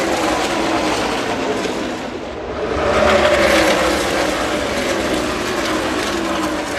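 A pack of NASCAR race trucks with V8 engines passing at racing speed. The engines swell to their loudest about three seconds in, with overlapping pitches sliding down as the trucks go by.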